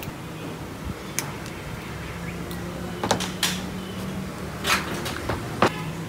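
Several sharp metal clicks and knocks as refrigerator compressor parts are handled and set down, over a steady low hum.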